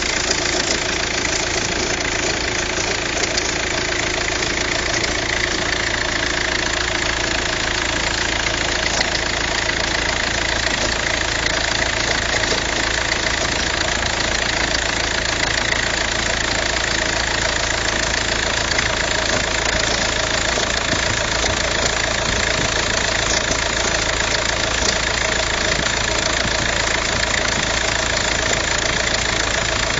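Volkswagen Passat engine idling steadily, with an abnormal noise from the accessory drive belt.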